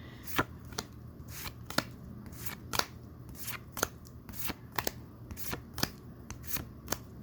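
Pokémon trading cards being flipped through one at a time, each card giving a short sharp snap, about three a second at an uneven pace.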